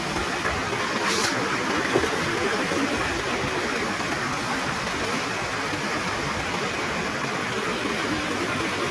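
Monsoon waterfall and fast river current rushing steadily, an even wash of water noise.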